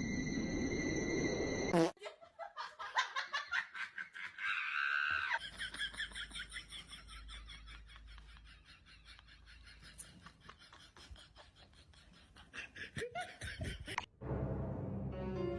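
People laughing in quick repeated bursts that slowly die away, between other short sounds from the clips.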